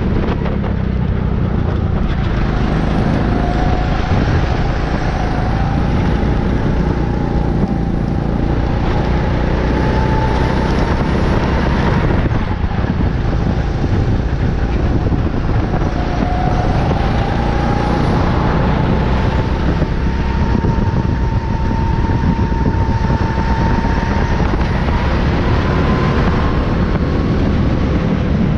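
Racing kart's engine heard onboard at speed, its pitch climbing steadily along the straights and falling away once near the middle as the kart slows for a corner, then climbing again. Throughout, it sits under a loud, steady rush of wind and road noise.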